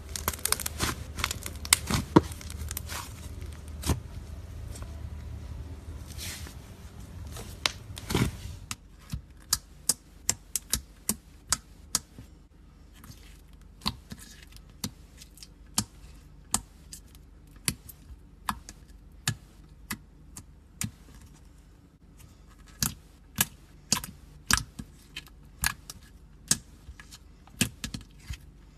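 Slime being squeezed and stretched by hand, giving a run of sharp clicks and pops from trapped air. Busier and noisier for the first eight seconds or so, then sparser, separate pops.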